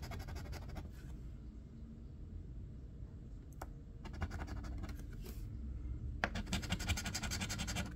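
A metal coin scratching the latex coating off a bingo scratch-off lottery ticket in rapid back-and-forth strokes. It is faint at first, with a few scattered strokes about four seconds in, then a fast, louder run of scratching from about six seconds in.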